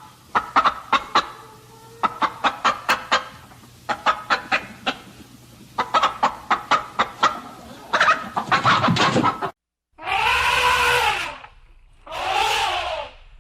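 Chicken clucking in quick runs of short clucks, several runs in a row. Near the end it cuts abruptly to two long calls from another animal, each rising and then falling in pitch.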